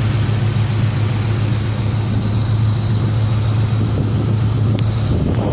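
Ford Mustang engine idling steadily with a fast, even clicking from the engine, a noise whose cause the owner cannot tell.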